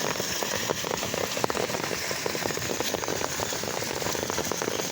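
Rain falling steadily, a dense, even spatter of many separate drops hitting the ground.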